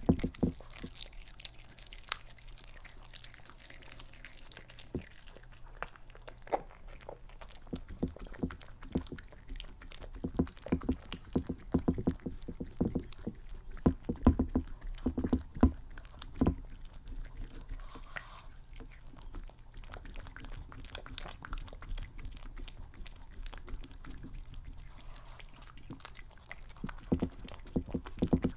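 A small dog eating raw quail eggs off a glass sheet: irregular crunching of the eggshells with wet chewing and licking, in uneven runs of sharp clicks that come thickest in the middle and near the end.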